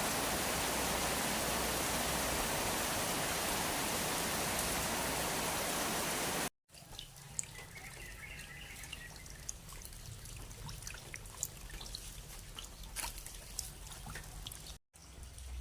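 Steady, dense rain noise for about six seconds, then an abrupt cut to a quieter take of water dripping and trickling, with scattered sharp drips. A second short cut comes near the end.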